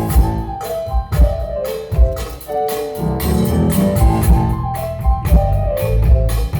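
Rock band playing live through a PA: keyboard chords and melody over a drum kit keeping a steady beat.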